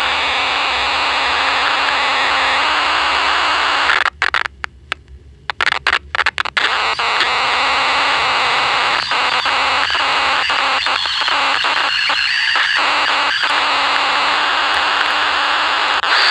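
Vintage pocket transistor radio's speaker putting out loud, steady static hiss, which cuts out in stutters for a couple of seconds about four seconds in and then crackles with a run of clicks, with faint whistles near the end.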